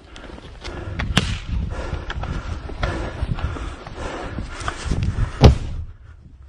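Gunshots: a sharp report about a second in and a louder one near the end, with fainter cracks and a continuous close rustle and scraping between them.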